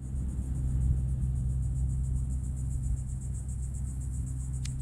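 A steady low rumbling hum, like a motor running at a distance, under a continuous high pulsing buzz of insects.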